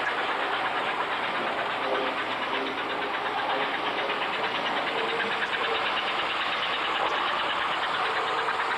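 Vintage American Flyer S-gauge toy train running on its track: a steady whirr of the electric motor and gearing over fast, even clicking of the wheels on the rails.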